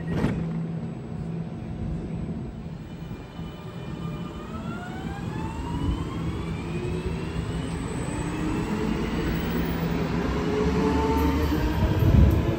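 SL X60 (Alstom Coradia Nordic) electric commuter train pulling away: a short knock as the doors shut just at the start, then the traction motor whine climbs steadily in pitch as it accelerates, several tones rising together over the wheel rumble. A loud low rumble swells briefly near the end.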